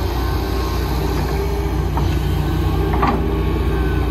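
Heavy excavator diesel engine running steadily, with two brief knocks about two and three seconds in.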